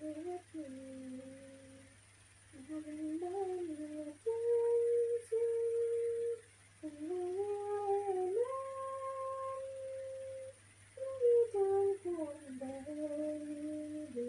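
A woman humming a slow, wordless tune, holding long notes with short pauses between phrases.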